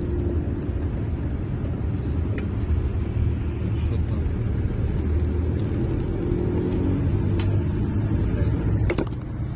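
Road noise inside a moving car's cabin: a steady low drone of engine and tyres, with a few faint clicks and a sharper one near the end.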